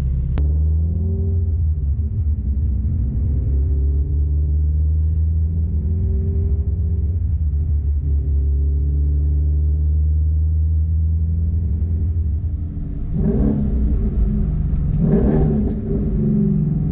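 Ford Shelby GT350's 5.2-litre flat-plane-crank V8 heard from inside the cabin while driving, running at a steady, slowly shifting engine note. From about thirteen seconds in come several quick surges in revs: the auto-blip module rev-matching downshifts at its default 50% throttle for 300 ms, which the driver finds too sensitive.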